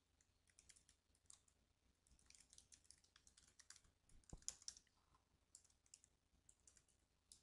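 Faint computer keyboard typing: scattered short key clicks, busiest in the middle, as an email address and password are entered.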